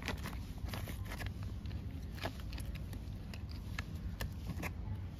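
Paper bag of potting mix rustling and crackling as gloved hands work in it: scattered sharp little crackles over a low steady hum.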